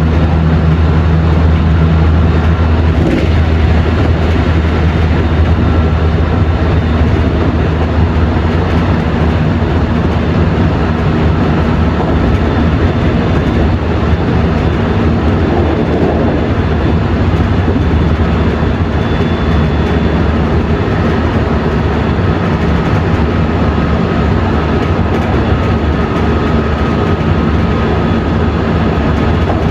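JR West 207 series electric train heard from aboard motor car MoHa 207-504, running at a steady pace: a continuous low rumble of wheels and traction motors with a faint steady whine from its Mitsubishi power-transistor VVVF drive.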